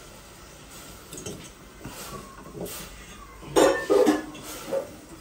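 A fork clinking and scraping against a small stainless steel saucepan as instant noodles are stirred, with a cluster of louder clinks about three and a half seconds in.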